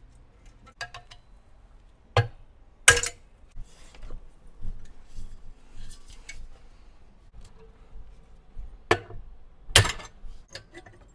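Steel catalytic-converter pipes and hand tools clanking and clinking on a workbench while the primary and secondary cats are separated: a few sharp metallic knocks, the loudest about three seconds in and again near the end, with lighter clinks between.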